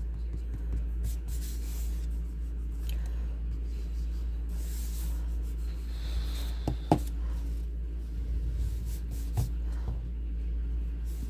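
Graphite pencil scratching and shading on paper in short strokes, over a steady low hum. Two sharp light taps come close together about seven seconds in.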